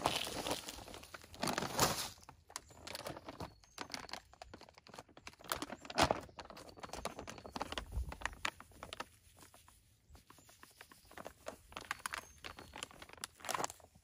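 Plastic bags of granulated plant food and bone meal crinkling and rustling as they are handled and shaken out over a tub of potting soil, with irregular crackles and a couple of louder rustles.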